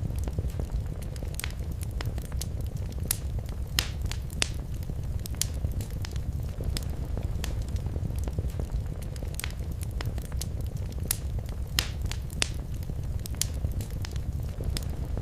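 Wood fire crackling in a fireplace: a steady low rumble of burning under frequent irregular sharp crackles, with a few louder pops.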